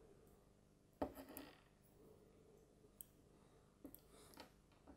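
Faint handling sounds of small steel watch parts and tweezers on a bench mat: one sharp click with a brief rustle about a second in, then a few soft ticks near the end.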